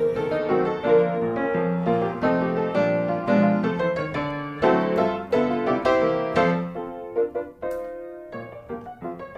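Background piano music, a light melody of struck notes played several to the second.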